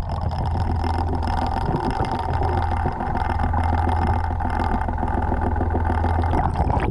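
A sailboat's inboard engine idling steadily, heard underwater beside the hull next to the propeller, which has debris wrapped around it.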